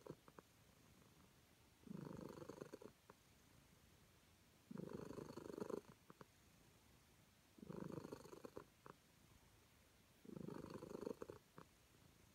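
Calico cat purring while being petted, a sign of contentment. The purr comes in stretches of about a second, roughly every three seconds, four times, with faint quiet gaps between.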